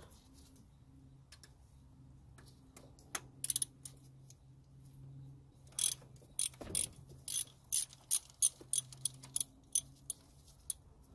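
Ratchet wrench clicking as a bolt on the power steering pump bracket is run in: a few clicks about three seconds in, then steady short strokes at roughly three clicks a second from about six seconds in.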